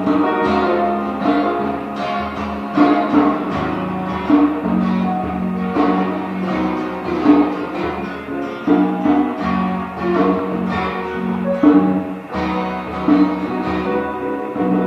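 Instrumental background music led by plucked guitar, with a steady run of notes.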